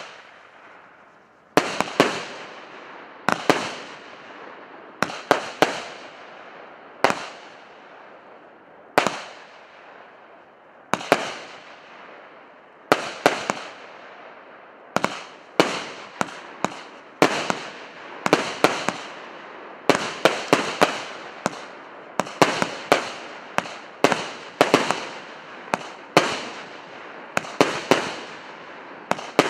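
A 100-shot, 1.2-inch firework cake battery ("Solnechny Veter" P8322) firing shot after shot: sharp reports, each fading off in a wash of noise. They come every second or two at first and quicker, often in close pairs, from about halfway on.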